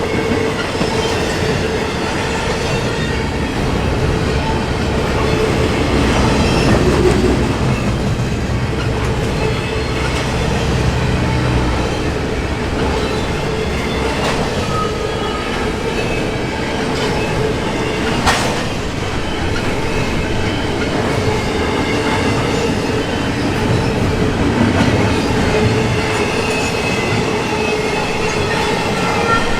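Intermodal freight train cars rolling past, a steady rumble of steel wheels on rail with a continuous wheel squeal. There is a sharp click about eighteen seconds in.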